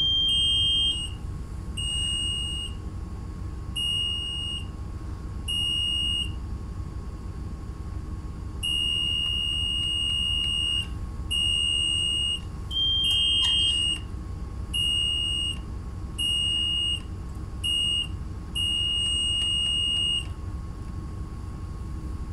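Ship's engine telegraph alarm beeping as the telegraph handle is moved through its orders during a telegraph test: a string of high steady beeps in two slightly different pitches, some short and some held for a second or two, stopping about twenty seconds in. A steady low machinery hum runs underneath.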